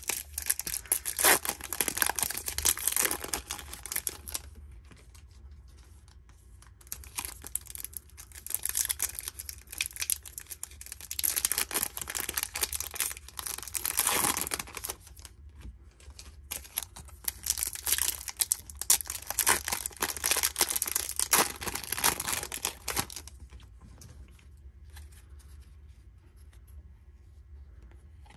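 Foil wrappers of Topps Chrome baseball card packs being torn open and crinkled by hand, in several spells of tearing and rustling that die down near the end.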